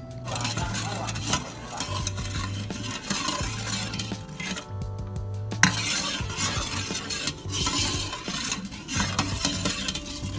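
A kitchen utensil stirring and scraping in a pan or bowl in repeated strokes, with a sharp clink about halfway through. Background music plays underneath.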